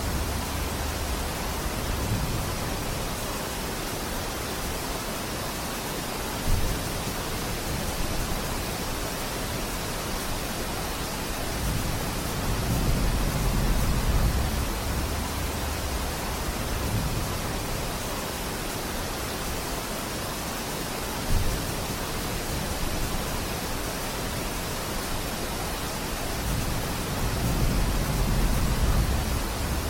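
Steady heavy rain falling, a dense even hiss, with low rumbles swelling and fading a few times and two brief sharp knocks, one early on and one past the middle.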